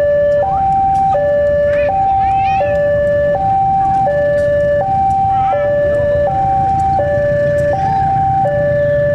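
Two-tone electronic warning signal alternating steadily between a higher and a lower tone, each held about two-thirds of a second, over the low rumble of a diesel locomotive's engine.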